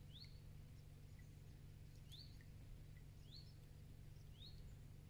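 A small bird calling faintly: four short, rising chirps spaced about a second or two apart, over a steady low outdoor rumble.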